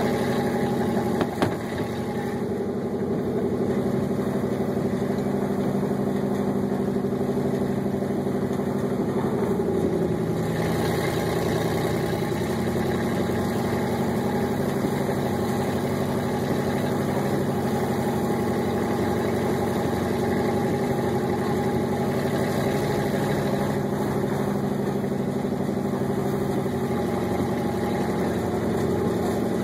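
Dodge Ram pickup's engine running steadily while towing through snow; its pitch drops about ten seconds in and then holds steady.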